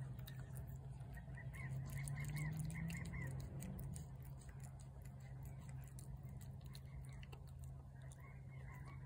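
A cat eating wet food from a plate, with a scatter of small chewing and licking clicks. Two short runs of quick chirping calls come in, about two seconds in and again near the end, over a steady low hum.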